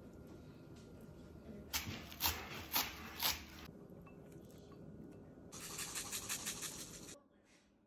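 Dishing up food into a ceramic bowl: four short, sharp scrapes about half a second apart. Near the end comes a quick rattle of fine ticks as sesame seeds are sprinkled over the dish.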